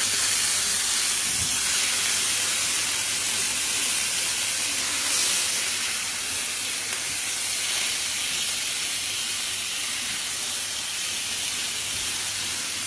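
Pieces of parboiled muru fish frying in coconut oil with curry leaves on a large flat iron tawa: a steady, high sizzling hiss that swells briefly about five seconds in.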